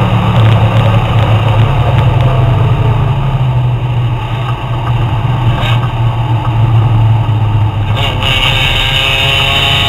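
Engine and wind noise heard inside the cabin of a sports car on track as it brakes hard from speed. The engine note runs steadily and then falls away, with two short sharp sounds a couple of seconds apart in the second half.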